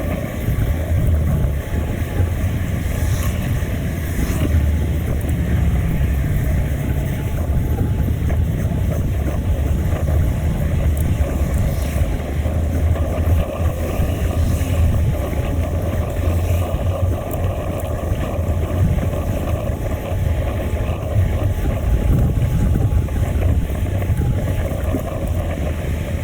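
Wind noise on a GoPro Hero 5's microphone during a bicycle ride, heard as a steady, deep rumbling rush of air.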